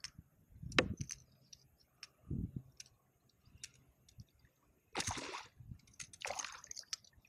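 A hooked fish splashing at the water's surface twice, about five and six seconds in, each splash lasting about half a second. Before that, a few scattered knocks and clicks.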